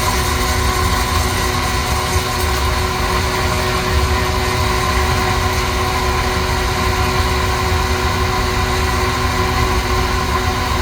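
Coffee roaster running steadily mid-roast: a continuous hum of drum motor, fan and burner with a low rumble.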